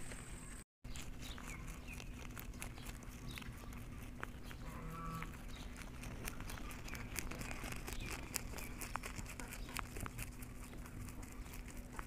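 Rabbits chewing and biting green leaves close to the microphone: a quick run of small crunching clicks that grows denser in the second half. The sound cuts out briefly under a second in.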